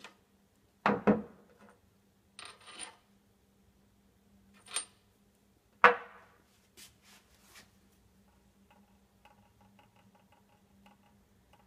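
Steel watchmaker's lathe accessories (tailstock, centres, collets) being handled and set down: a series of sharp metal clinks and knocks, the loudest about a second in and near the middle, with a short scrape between them and faint small ticks in the second half.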